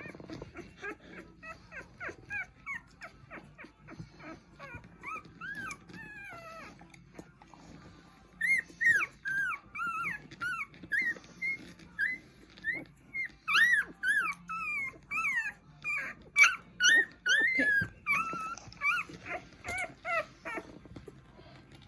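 A week-old puppy crying in a rapid string of short, high-pitched squeals that rise and fall in pitch, louder from about eight seconds in, as it is held to have its nails trimmed.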